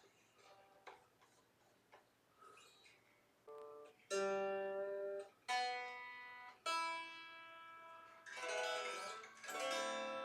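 Strings of a freshly restrung 1997 Squier Jagmaster electric guitar being plucked one at a time while it is tuned up, some notes left to ring and others cut short, then two strummed chords near the end. Faint handling clicks come before the first note.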